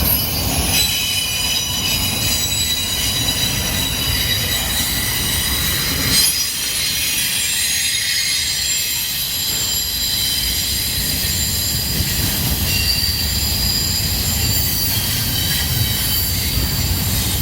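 Intermodal freight train rolling past, its wheels giving a steady high-pitched multi-tone squeal over a continuous low rumble, with one brief knock about six seconds in.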